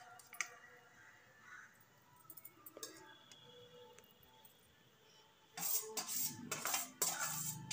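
Mostly quiet with a few soft clicks, then, about five and a half seconds in, a metal spoon starts scraping and clinking against a steel bowl and pan as paneer cubes are tipped into the gravy and stirred.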